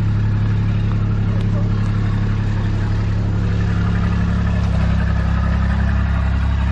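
Engine running steadily close by, a loud low hum that shifts to a slightly different note about five seconds in.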